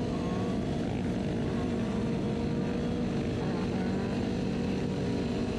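Several motorcycle engines running at once, a steady drone of overlapping engine notes.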